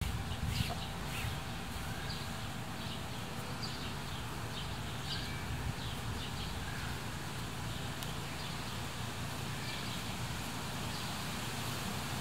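Outdoor ambience: small birds chirping in short calls every second or so over a steady low rumble.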